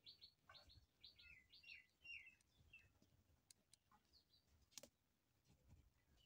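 Near silence, with faint high chirps of small birds in the background for the first three seconds or so, and a single faint click about three-quarters of the way through.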